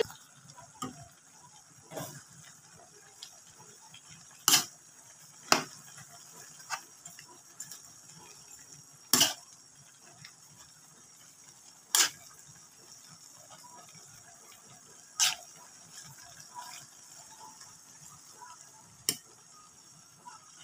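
Metal spatula knocking and scraping against an aluminium wok as noodles and vegetables are stir-fried, with sharp clanks every few seconds over a faint steady hiss.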